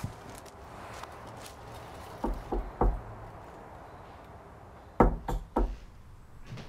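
Knocking on a door: three quick knocks about five seconds in, with three fainter thuds a couple of seconds earlier.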